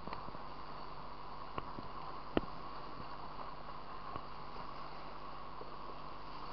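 Fast-flowing river water rushing steadily around a camera riding at the surface and dipping under it. A few sharp knocks cut through, the loudest about two and a half seconds in.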